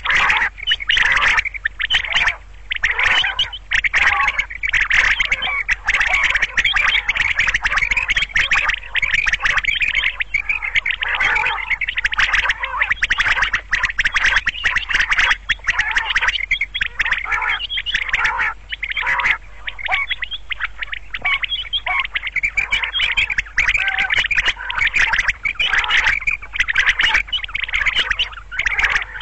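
Female quail calling over and over in quick, harsh notes, with only brief pauses.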